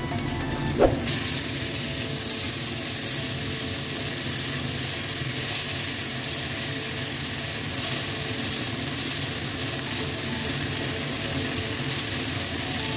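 Bell pepper pieces and pineapple chunks sizzling in hot oil in a wok while being stirred with a spatula. About a second in there is one sharp knock as the pineapple is tipped in from a bowl, and the sizzle grows louder from then on.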